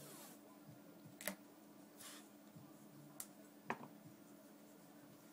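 Faint handling of tape on a shoe: a few soft rustles and swishes, with three sharp little clicks. Otherwise near silence.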